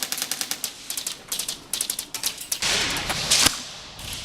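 Airsoft gun firing on full auto, a fast even clatter of about fifteen shots a second that stops a little way in, followed by a few short bursts. About two and a half seconds in comes a loud rush of noise lasting under a second, ending in a sharp knock.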